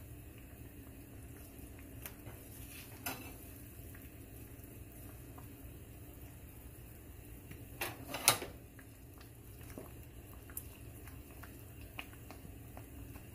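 Green salsa simmering quietly in a skillet, with a few short knocks and scrapes of a wooden spatula against the pan. The loudest is a cluster about eight seconds in.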